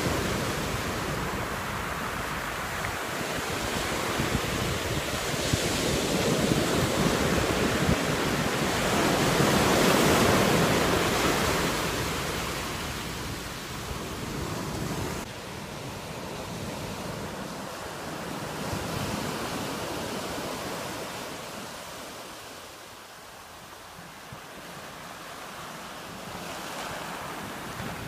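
Ocean surf breaking and washing up a sandy beach: a rushing wash that swells and ebbs with the waves, loudest about ten seconds in.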